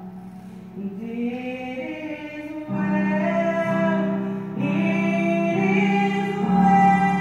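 A woman singing a slow worship song into a microphone, with a digital piano accompanying her. The opening second is quieter, then she holds long notes.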